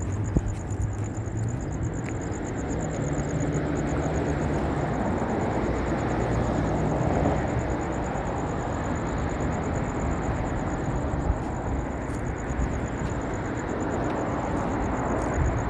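Steady low rumble of distant traffic, with the high, evenly pulsing trill of an insect running throughout and a few faint clicks.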